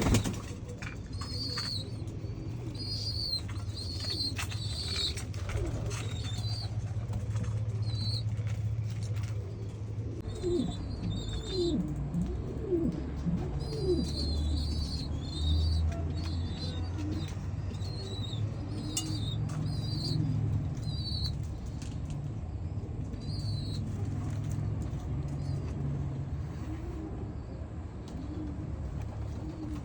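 Pigeons cooing, with a few low falling coos clustered in the middle, over repeated short high chirps. A few clicks, which may be wing flaps, come early on, and a steady low hum runs underneath.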